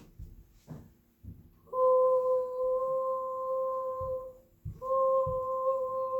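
A child's voice humming two long, steady notes on the same pitch, each held for a couple of seconds, with a short break between them.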